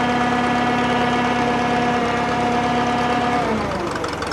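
Drott 85RM2 crane's engine running at a steady speed, its pitch dropping a little over three seconds in.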